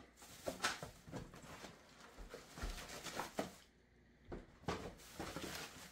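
Cardboard packaging being handled: a molded pulp insert lifted out of a cardboard box, with plastic wrap rustling. It comes as a scattering of faint, short scrapes and taps.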